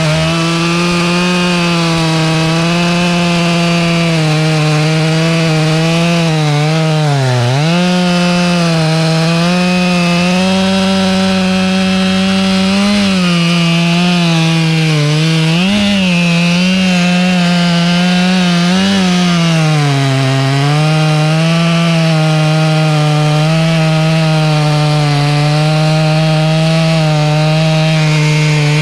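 Two-stroke chainsaw running at high revs and cutting through wood. Its pitch dips briefly several times as the chain loads in the cut, then recovers.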